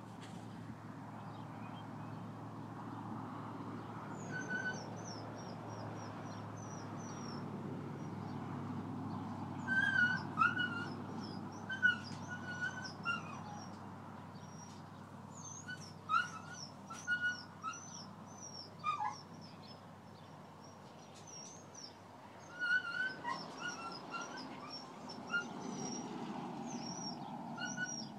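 A dog whining in short, high-pitched squeaks, in clusters of several calls at a time, over a steady low outdoor background noise.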